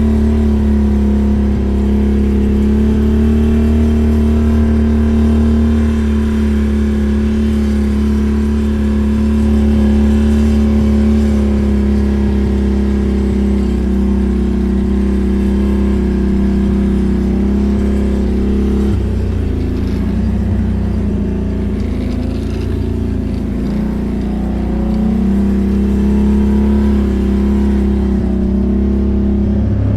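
ATV engine running at a steady speed, its pitch dipping and wavering for several seconds about two-thirds of the way through before settling again.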